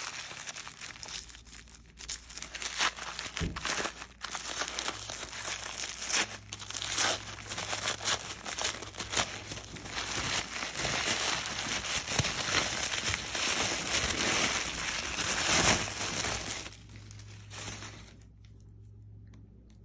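Packaging being unwrapped by hand: dense crinkling and tearing of wrapping material, continuous for most of the time and easing off near the end.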